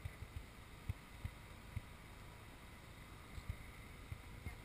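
Wind buffeting the microphone: irregular low thumps a few times a second over faint outdoor background, with no clear engine or water sound.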